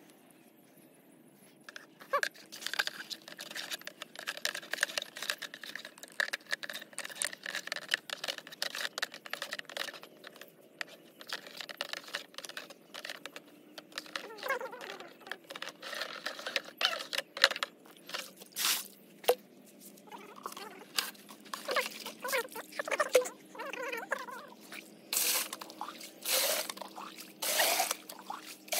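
Scattered rustling and clicking as a plastic spray hose is handled, then, near the end, a few louder splashes of water being scooped with a bucket and poured into a plastic drum.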